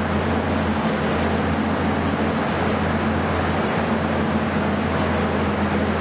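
Diesel engines of heavy demolition excavators running steadily: a constant low hum under an even rushing noise, with no strikes or crashes.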